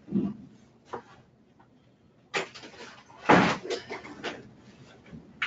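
A Broda Centric positioning wheelchair's metal frame knocking and clattering as it is tipped over and turned upside down. There are several separate knocks, and the loudest thump comes a little over three seconds in.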